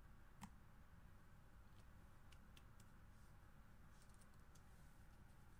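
A single sharp click about half a second in as a stylus snaps onto the magnetic edge of an iPad Air, then a handful of faint clicks from keys being tapped on a slim Bluetooth keyboard case. Very quiet overall.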